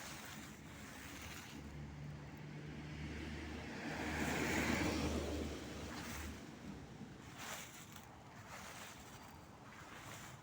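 A car passes by: its engine hum and tyre noise swell to a peak about halfway through, then fade. Brief rustles of dry autumn leaves are heard afterwards.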